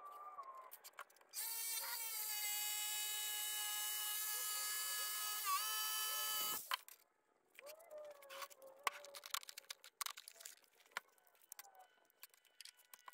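Jigsaw cutting a curve through an MDF board: a steady buzzing whine for about five seconds, dipping in pitch once shortly before it stops abruptly. Faint clicks and handling knocks follow.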